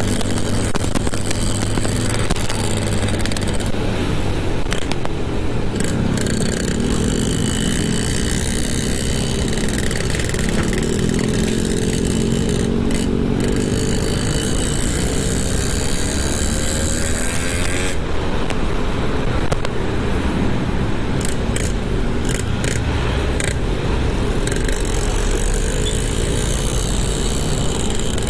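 Motorcycle engine running under the rider, its pitch rising and falling several times as it accelerates and eases off in slow traffic, over a steady low wind rumble on the microphone.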